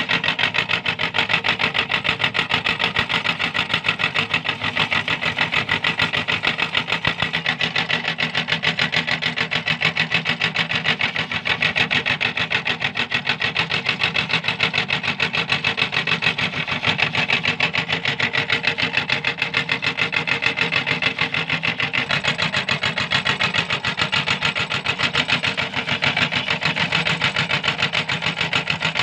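Electric meat grinder running steadily, its motor whining under a fast, even rattle as it grinds cookies.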